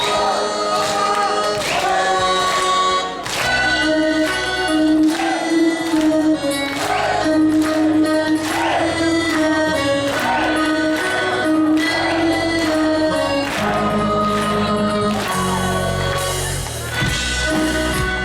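Live band music: a held, choir-like melody over regular drum hits, with a bass part coming in about three and a half seconds in.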